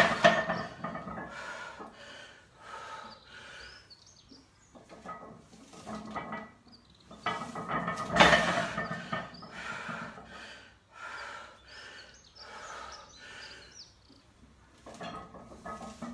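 A heavily loaded barbell, 182.5 kg, being pulled from and set back down on the steel pins of a power rack during rack pulls. The bar and plates clank in a run of knocks, loudest at the start and about eight seconds in.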